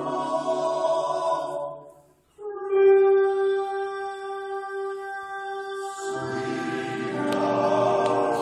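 Men's chorale singing: a chord fades out about two seconds in, then after a brief gap one long note is held alone, and the full chorus comes back in with harmony about six seconds in, growing louder toward the end.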